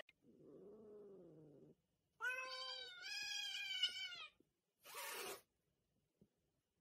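Domestic cat yowling: two drawn-out, wavering calls about two to four seconds in, after a fainter, lower call. A short burst of noise follows about five seconds in.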